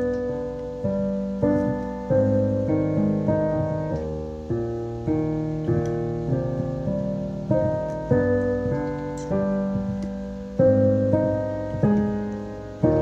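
Solo piano playing a slow piece of chords, each struck and left to fade before the next, about one a second.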